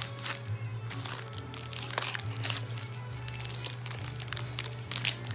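Foil Pokémon booster pack being torn open and crinkled in the hands, irregular rustling and crackling, with background music.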